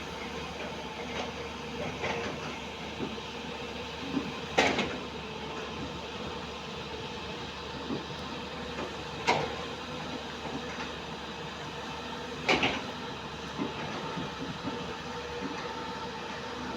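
JCB NXT 205 excavator's diesel engine and hydraulics running steadily while it works, with a few sharp knocks about every four seconds, the loudest near the end.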